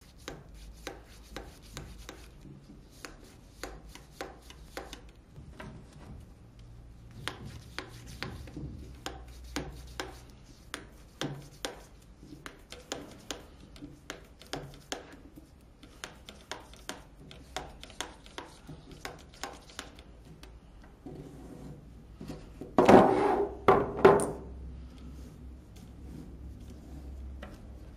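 A bar magnet tapping and clicking against the steel bolts on top of a row of coils: many short, sharp clicks, about one or two a second. Near the end come two louder bouts of scraping and knocking as the coils are handled and moved on the board.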